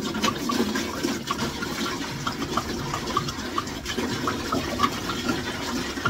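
Water pouring in a steady stream from a 5-gallon plastic water jug into a plastic bucket, with a quick, irregular gurgling.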